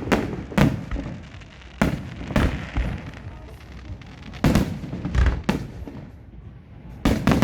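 Festive fireworks salute: about ten shell bursts go off as sharp bangs at irregular intervals, each trailing a short echo, with a spell of crackling after one burst about two and a half seconds in.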